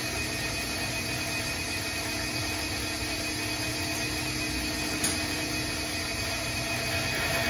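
Electric motor of an inverter-controlled engine test stand turning a Harley-Davidson Shovelhead V-twin over by belt, without the engine firing: a steady mechanical hum with a few fixed tones. A single sharp click about five seconds in.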